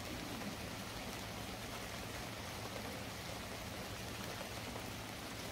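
Steady rain falling on open umbrellas, an even hiss with no distinct drops standing out.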